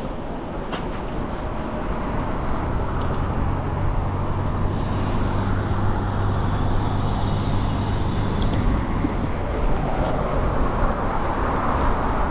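Road traffic heard while riding an e-bike: a steady rush of wind and road noise, with a motor vehicle's engine humming steadily close by for several seconds in the middle, and a few faint clicks.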